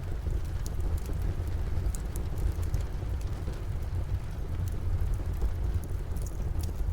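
Steady rain falling outside, heard as a continuous low rumble and hiss, with the scattered sharp crackles and pops of a wood fire in a fireplace every second or so.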